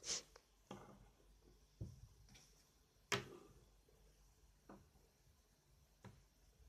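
Faint, scattered clicks and taps, about six in all and the loudest about three seconds in: small plastic toy figures being handled and set down on a hard surface.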